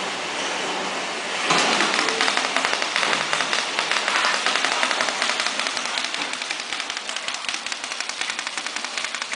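Horizontal flow-wrap (pillow) packing machine running as it wraps kitchen towels in plastic film: a steady whir, then from about one and a half seconds in a rapid, even mechanical clatter of several clicks a second.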